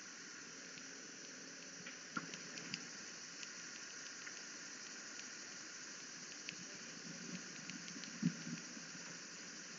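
Faint steady background hiss with a few small clicks scattered through it and a soft knock about 8 seconds in.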